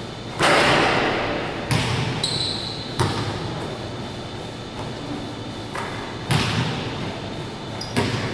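A basketball hits the hoop hard, about half a second in and again about six seconds in, each bang ringing on through the big hall. Between the two, the ball bounces on the hardwood floor, and there is a brief high squeak about two seconds in.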